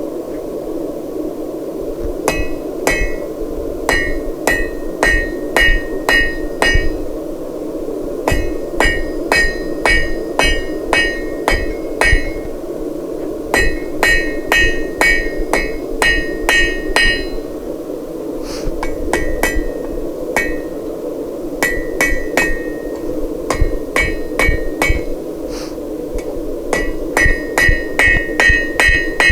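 A 2-pound cross peen hammer forging hot 1/2-inch square steel on an anvil: runs of sharp, ringing blows about two a second, broken by short pauses between runs, over a steady low rushing noise.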